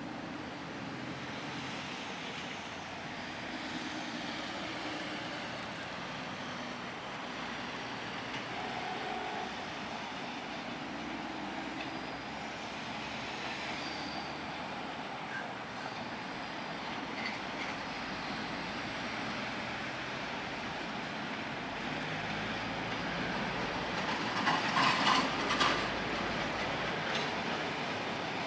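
ED4M electric multiple-unit train running on the rails, its noise slowly growing louder, with a run of sharp clicks and knocks from the wheels near the end.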